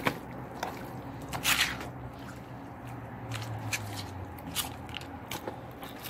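Hands working pieces of raw hen in wet seasoning in a plastic bowl: scattered wet squishes with a few light knocks, the loudest about one and a half seconds in.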